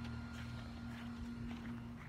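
Footsteps of a person walking in slide sandals, moving from grass onto concrete, as a series of light steps over a steady low hum.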